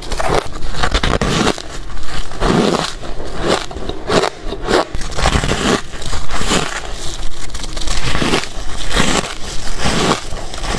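Hard ice being bitten and chewed close to the microphone: a run of loud, crisp crunches one after another, with no speech.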